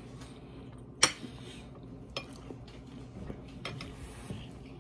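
Cutlery clinking against a dinner plate: a few sharp clicks, the loudest about a second in and another just after two seconds, then fainter taps.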